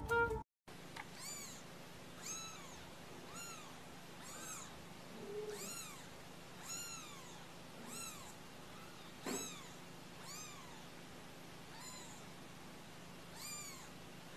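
Kittens mewing, short high-pitched mews that rise and fall in pitch, repeated about once a second. There is a sharp click about nine seconds in.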